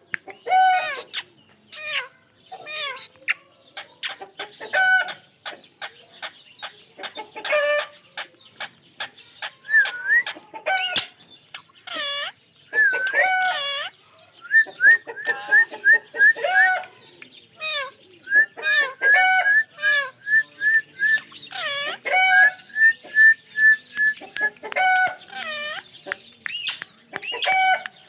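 Ringneck parrot calling: a long string of short squawks and chattering calls. Through the middle come several rapid runs of quick repeated chirps.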